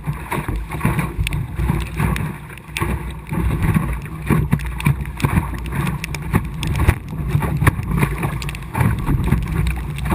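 Water slapping and splashing against an Optimist dinghy's hull under sail, with wind buffeting the microphone: a steady rushing wash broken by many irregular knocks and splashes.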